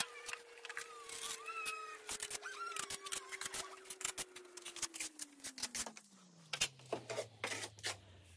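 Trowel scraping and a hand patting and smoothing wet tile adhesive mortar onto a wall: a run of short irregular scrapes, dabs and clicks. A faint steady hum slides down in pitch from about five seconds in.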